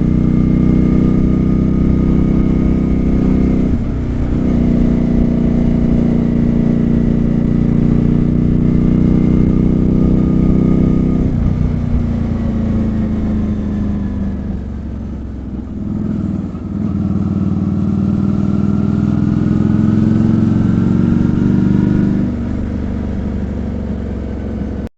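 Honda Shadow 400 V-twin engine running through aftermarket Screamin' Eagle 2 silencers while being ridden. It runs steady under throttle, with the note changing about four seconds in and dropping about eleven seconds in. It eases off and goes quieter in the middle, then picks up and climbs in pitch before easing again near the end.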